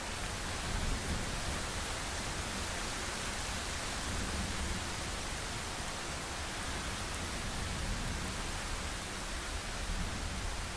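Heavy rain falling steadily, an even hiss with no distinct thunderclap.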